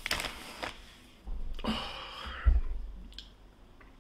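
Two sharp, noisy breaths from a person, a short one at the start and a longer one from just over a second in. A low thump about two and a half seconds in is the loudest sound.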